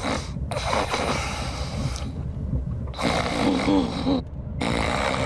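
A person snoring heavily: several rasping snores in a row with short pauses for breath, over a steady low rumble like a moving train's.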